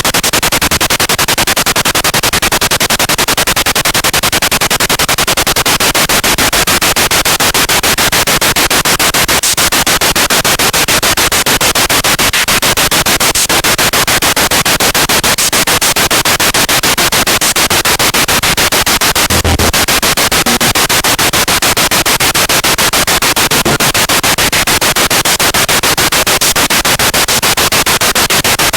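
Spirit box (radio scanning device) sweeping through stations: loud, steady static hiss chopped into a rapid, even pulsing by the scan.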